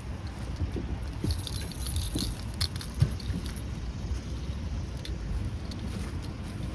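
Light jingling and clicking from something being handled, with a single sharp thump about three seconds in, over a steady low rumble.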